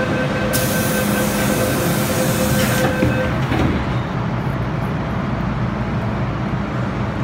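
Underground metro train at the platform. A steady motor whine sounds through the first three seconds, with a loud hiss over about two seconds near the start, and then a lower, steady rumble.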